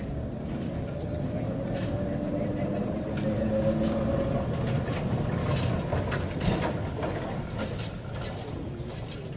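A vehicle moving past at low speed: a low rumble that grows louder toward the middle and then eases off, with a few clicks and knocks.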